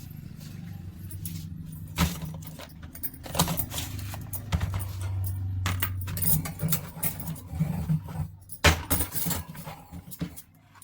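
Table fan motor running with a steady low mains hum that grows louder over the first couple of seconds, with repeated metallic clinks and rattles over it.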